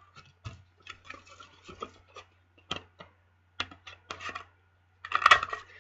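Cardstock being handled: light paper rustles and small taps, with a denser burst of rustling near the end.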